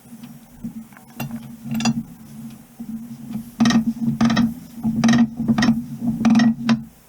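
A series of sharp metallic clinks and knocks, about eight of them and bunched in the second half, from tools and metal parts being worked while fitting a U-joint, over a steady low hum that stops at the end.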